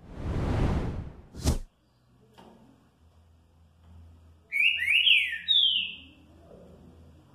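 Caged green-winged saltator (trinca-ferro) singing one short, loud phrase of three or four quick slurred whistled notes about four and a half seconds in. Before it, about a second of rustling and a single sharp knock.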